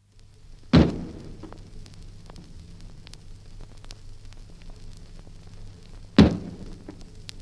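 Antique cannon firing: two sudden booms about five and a half seconds apart, each with a short decaying tail. Underneath is the steady low hum and scattered clicks of a 78 rpm disc transfer.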